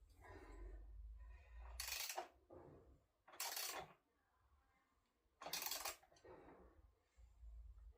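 Ratchet spanner tightening a motorcycle seat bolt: three short bursts of metallic ratchet clicking about every two seconds, with faint handling knocks between.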